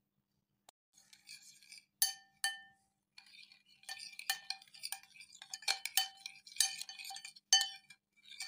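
Metal spoon clinking and scraping against a small glass bowl while stirring a thin sauce, each clink ringing with a clear note. Two clinks come about two seconds in, then a quick run of clinks and scrapes.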